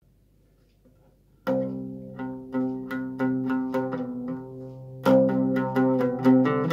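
Solo oud taqsim (improvisation) in maqam Ajam on C. After about a second and a half of quiet, a strong first note rings out, followed by a run of plucked notes, several a second, each ringing and fading, with a louder attack about five seconds in.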